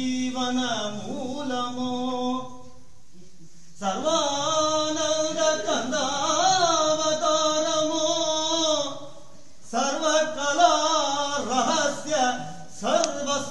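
A single voice singing a Tamil devotional song in praise of Ramanuja, holding long, ornamented notes in phrases broken by a couple of short pauses.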